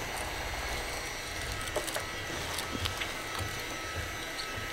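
Electric hand mixer running at low speed, its beaters working butter and powdered sugar in a stainless steel bowl: a steady motor sound with a few light clicks.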